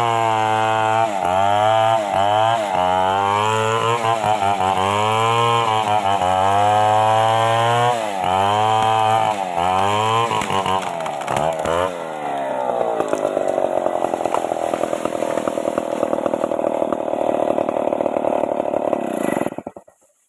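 Stihl 381 two-stroke chainsaw cutting a mahogany tree, its engine pitch repeatedly sagging and recovering as the chain bites into the wood. About twelve seconds in it settles into a steadier, harsher sound, then cuts off suddenly near the end.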